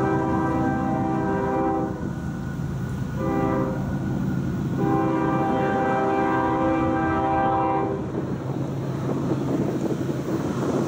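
Diesel freight locomotive's air horn sounding a chord for a grade crossing. A blast ends about two seconds in, a short blast follows about three seconds in, then a long blast lasts about three seconds: the close of the long-long-short-long crossing signal. After the horn stops, a rough, rising rumble builds as the train nears.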